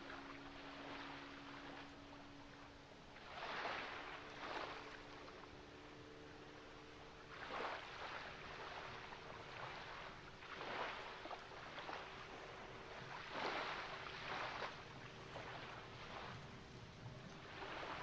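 Ocean waves washing in, surging every three or four seconds, over a faint steady hum.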